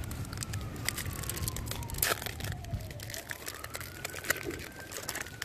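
Card-pack wrapper crinkling and tearing as it is opened, with a distant siren slowly wailing down and back up in pitch.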